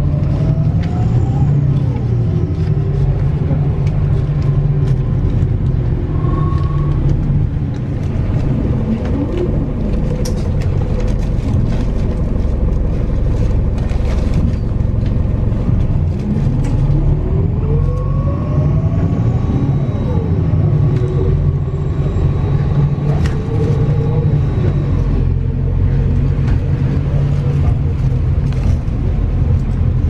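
MAZ-206 city bus driving, heard from inside the cabin: a steady engine and road rumble, with a whine that rises in pitch twice as the bus picks up speed, about a second in and again around eighteen seconds in.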